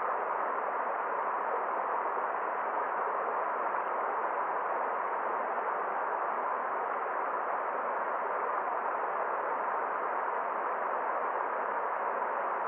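Forest stream water running with a steady, even rush, with no separate splashes or other sounds standing out.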